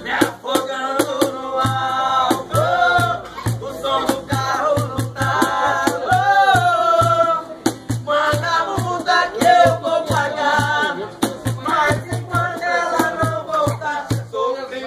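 Music: a singing voice with long held notes over a steady percussive beat with a shaker-like rattle.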